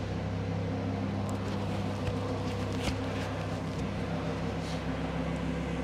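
Lamborghini Huracan LP610-4's V10 idling with a steady, even hum, and a few light footsteps on the hard floor beside it.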